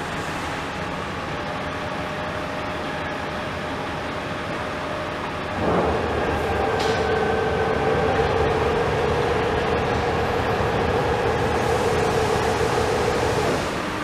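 Municipal tanker truck running steadily. A bit before halfway it gets louder, with a steady whine that holds until just before the end.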